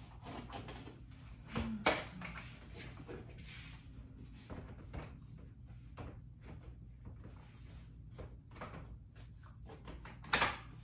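Clicks and knocks of a stroller's seat being handled and adjusted on its frame, with two louder knocks about two seconds in and a sharp one near the end.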